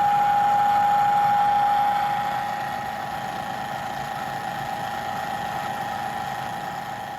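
Milling machine cutting aluminum plate, a steady mechanical whine with a strong single tone. It turns quieter about two seconds in.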